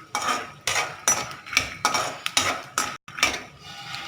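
Metal spatula scraping and knocking against a metal pan (kadhai) as peanuts are stirred while roasting, about two strokes a second.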